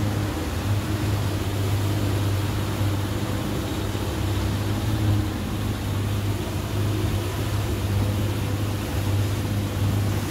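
A motorboat's engine running steadily under way, a constant low drone, with a hiss of wind and rushing water over it.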